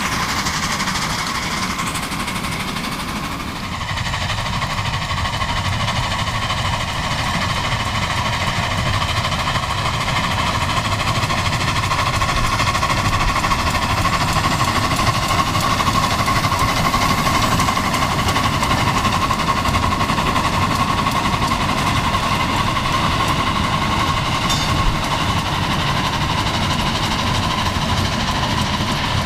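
A 7½-inch gauge miniature train rolling past on its track, with a continuous clattering rumble from the wheels and cars. A steady high ringing tone runs over it.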